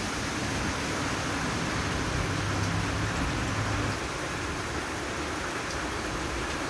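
Steady rain falling, an even hiss, with a low hum underneath from about two to four seconds in.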